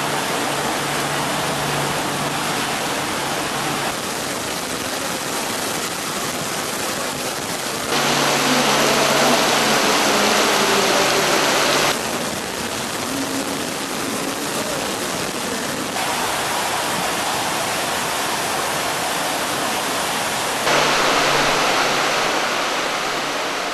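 Artificial torrential downpour from the nozzles of a large rainfall-simulation facility, a dense steady hiss of heavy rain falling on grass, so loud that a conversation with the person next to you is impossible. It gets louder for a few seconds about a third of the way in and again near the end.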